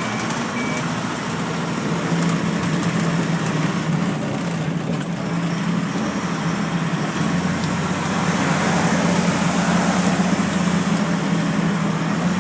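Snowplow truck engine running steadily as the truck drives, a low hum under a haze of road noise that grows a little louder about eight seconds in.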